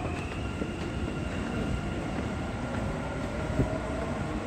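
Dubai Metro train running in the station: a steady rumble under a high electric whine. There is a brief knock about three and a half seconds in.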